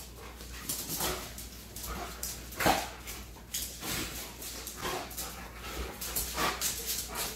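An Alaskan malamute and a Siberian husky play-fighting, making short vocal sounds, the loudest about two and a half seconds in, as they scuffle on a tile floor.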